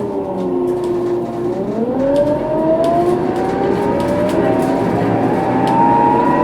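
Scania K230UB bus's rear-axle differential whining, a set of pitched tones that sink for about a second and then climb steadily as the bus gathers speed, over the rumble of the running bus, with a few light rattles.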